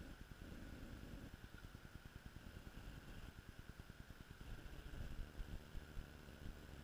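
Faint wind buffeting the camera microphone, an uneven low rumble that grows gustier about two-thirds of the way in, over a steady faint hiss.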